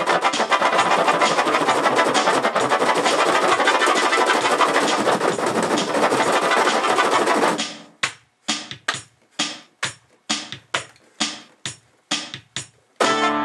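Casio Tone Bank electronic keyboard being played. A dense, continuous wash of notes cuts off abruptly about halfway through. A string of short separate notes follows at about three a second, each dying away quickly, and a held chord comes in at the very end.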